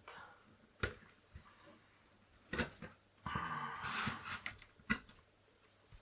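Handling noises on a workbench: a few sharp clicks and knocks, with a rustling scrape lasting about a second and a half past the middle.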